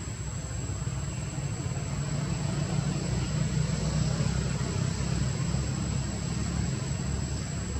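Steady low rumble of outdoor background noise with a constant high-pitched whine above it, swelling slightly in the middle.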